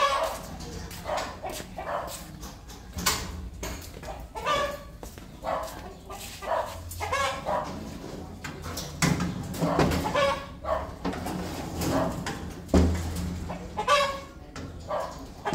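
A string of short animal calls, about one or two a second.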